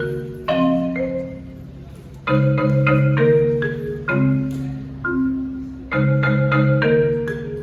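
A tuned mallet-percussion instrument played solo. Short phrases of quickly struck notes and chords start about every two seconds, each ending in notes left ringing.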